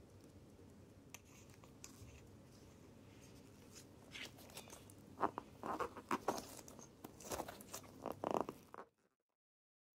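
Rubber case-opener ball gripping and twisting a watch's stainless-steel screw-on case back to close it: a run of short rubbing squeaks and scrapes from about halfway through, which cut off abruptly about a second before the end.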